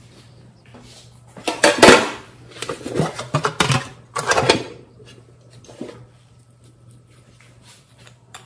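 Hands open a cupcake-shaped case and handle a small glass bottle: a cluster of clattering knocks and scrapes, loudest about two seconds in, then one fainter knock near six seconds.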